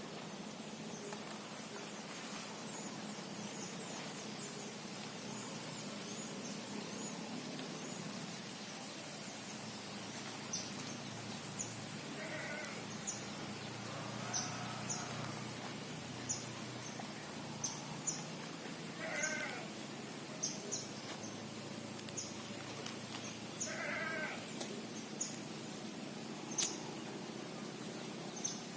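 An animal's short calls, about five of them a few seconds apart from about halfway through, over a run of short high chirps roughly once a second.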